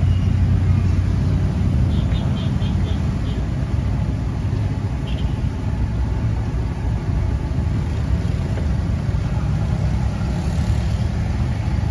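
Fishballs deep-frying in a wok of hot oil over a steady low drone, with a few light metallic clinks of a wire skimmer about two seconds in.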